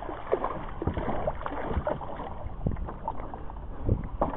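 A hooked fish splashing and thrashing at the water's surface beside a small boat, heard as irregular short splashes over water lapping at the hull.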